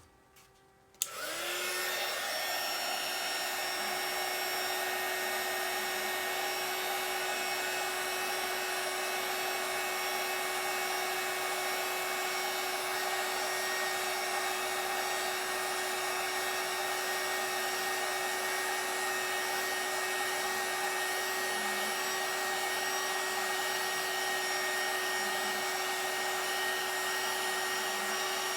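Handheld electric air blower switched on about a second in, then running steadily at one speed, a constant rushing of air with a motor whine, used to blow and dry alcohol ink on a spinning tumbler.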